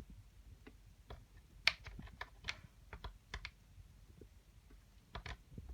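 Faint, irregular clicks and taps of cables and plugs being handled and pushed into their sockets on a TV and camcorder.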